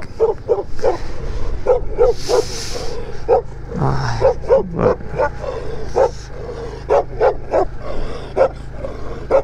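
A dog barking over and over in a rapid string of short barks, about two or three a second, as it chases alongside a small 110 cc motorcycle whose engine hums steadily underneath.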